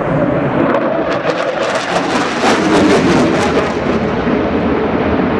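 Jet roar of a Panavia Tornado F2's twin RB199 turbofan engines in afterburner during a low pass, with a harsh crackle from about a second in until nearly the end.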